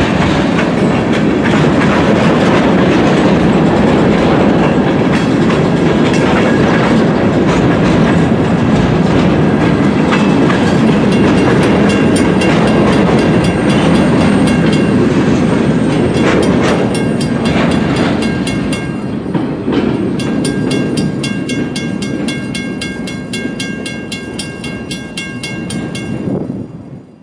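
Freight cars of a local freight train rolling past, wheels clattering over the rail joints. The rumble eases off as the last car moves away, with thin high ringing tones above it in the second half, and the sound cuts off at the very end.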